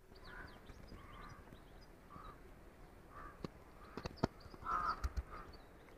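Crows cawing: several short, fairly faint caws spaced out over a few seconds, with a few faint clicks about halfway through.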